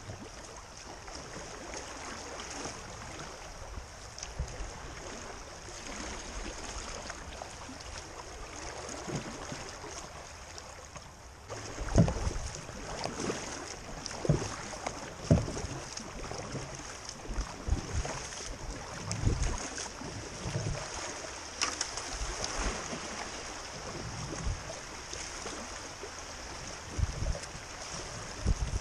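Creek water rushing steadily around a solo open canoe, with irregular paddle strokes, splashes and low thumps against the hull from about halfway on, one every second or two.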